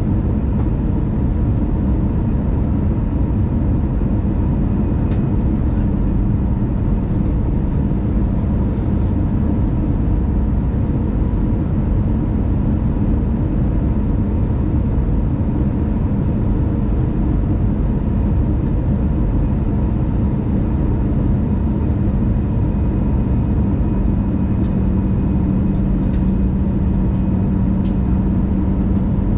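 Steady cabin noise of an Airbus A319 descending on approach: engine drone and rushing airflow as heard inside the passenger cabin, with a low hum that grows stronger over the last few seconds.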